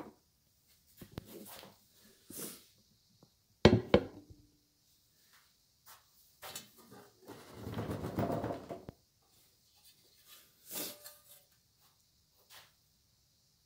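Handling noises from assembling a benchtop band saw: scattered light knocks and clunks of metal and plastic parts, with two sharp knocks about four seconds in and a longer scraping sound around eight seconds.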